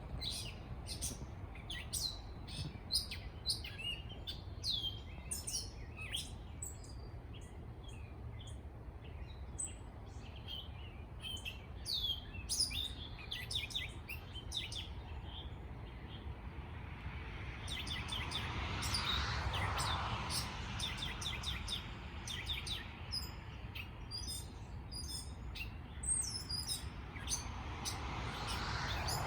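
Many small birds chirping and twittering in quick, overlapping calls, over a steady low background rumble. Twice, about two-thirds of the way in and again near the end, a broad rushing noise swells up and fades under the birdsong.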